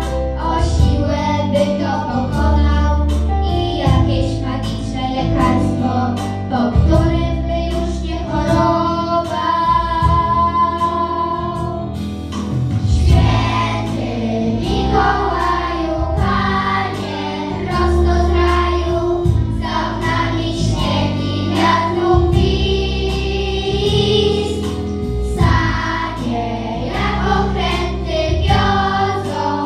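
Children's choir singing a Polish Christmas song, with girls singing into microphones in front, over instrumental accompaniment with a steady bass line.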